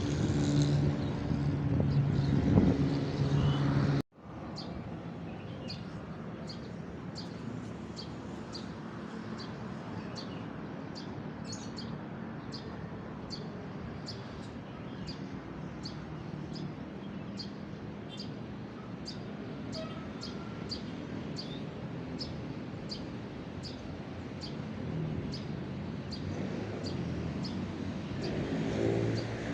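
A road vehicle passing for the first four seconds, then a sudden cut. After it, a bird repeats a short high chirp a little more than once a second over a steady low background hum. Another vehicle approaches near the end.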